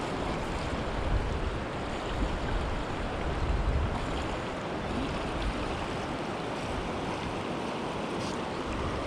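Steady rush of fast-flowing river water, with low wind rumble on the microphone during the first few seconds.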